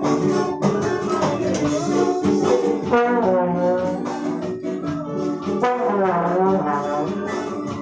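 Trombone playing a wavering melody with pitch bends, over electronic keyboard and acoustic guitar chords.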